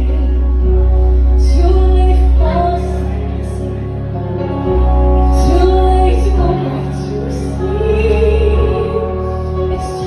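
A woman singing a show tune live into a handheld microphone, over amplified accompaniment with deep bass notes that drop out and come back.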